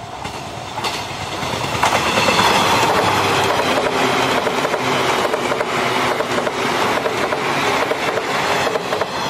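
Electric limited express train passing close by, its wheels clacking over the rail joints. The noise swells over the first two seconds as the train arrives and stays loud while the cars run past.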